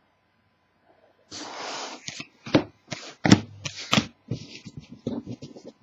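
Trading cards being handled: a short rustle, then a run of quick clicks and slaps of cards against each other.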